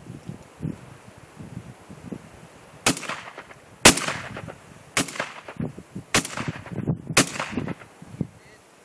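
Shotgun fired five times in quick succession, about a second apart, each shot sharp with a short ringing tail, over light wind.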